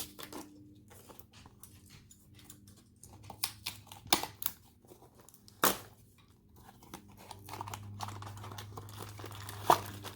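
Plastic packaging crinkling and tearing as a small package is opened by hand: irregular crackles with a few louder snaps, then steadier rustling near the end.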